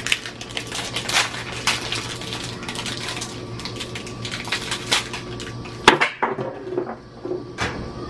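Crinkling and rattling as an Affresh washer-cleaner packet is shaken and emptied into a top-loading washing machine's drum, then a loud thump about six seconds in as the washer lid is shut.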